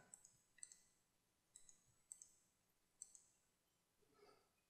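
Faint computer mouse clicks, about half a dozen single clicks spaced irregularly, over near silence.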